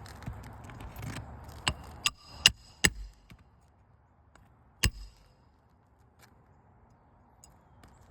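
A roofing hammer striking nails into asphalt shingles: four sharp, ringing blows in quick succession, then one more a couple of seconds later.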